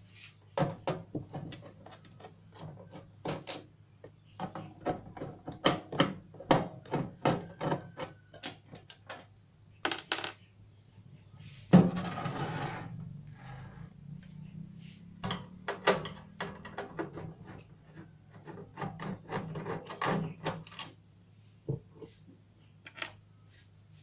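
Clicks, knocks and clatter of a microwave oven's sheet-metal outer cover being unscrewed and taken off, in quick irregular strokes. About halfway through comes one louder knock, followed by about a second of rushing noise.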